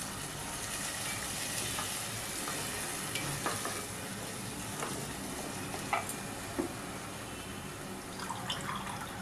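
Mutton and onion masala sizzling steadily in a pan while it is stirred, with a few sharp clicks of the utensil against the pan.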